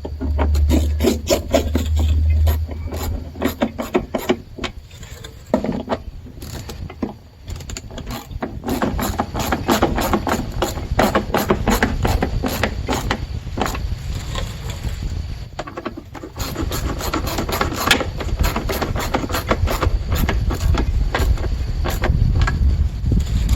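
Case screws being driven into a plastic HVAC box, with runs of rapid clicking and scraping as the plastic parts are worked. A low hum sounds for the first few seconds.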